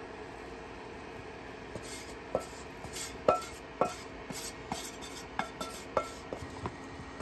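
Metal utensil clinking and scraping against a cooking pot as warmed roux is scraped in and stirred. There are about a dozen sharp, ringing knocks, starting about two seconds in, over a faint steady hum.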